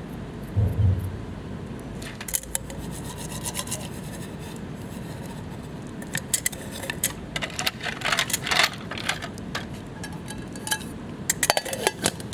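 Hand-working sounds: a low thump near the start, then repeated scraping and rubbing with clusters of sharp clicks and a few short metallic rings.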